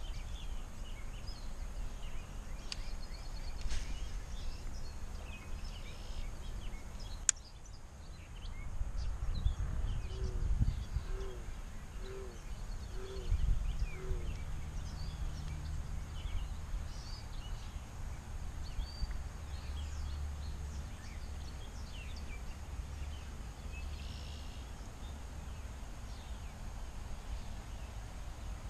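Outdoor pond-side ambience: small birds chirping over a low rumble on the microphone. About ten seconds in, a bird gives five short low hooting notes evenly spaced under a second apart, and there is a single sharp click a little before that.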